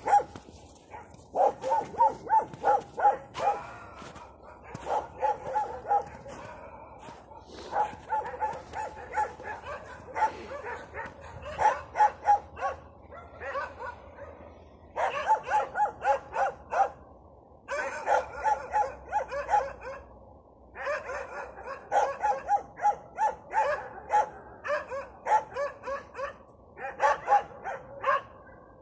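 A pack of stray dogs barking in quick runs of several barks a second, in bouts broken by short pauses.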